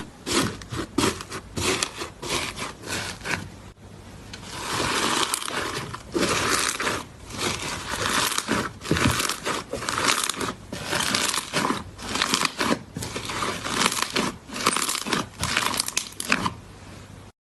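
Slime squeezed and worked by hand close to the microphone, giving irregular crackling and crunching. About four seconds in it settles into repeated squeezes roughly once a second.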